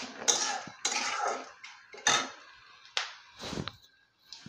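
Steel spatula scraping and stirring around a kadhai as cashews, peanuts, chana dal and urad dal fry in oil, about five uneven scraping strokes.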